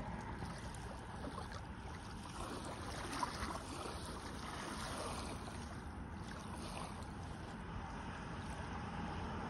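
Steady wind rumble on the microphone, with gentle water sounds from small ripples on the lake.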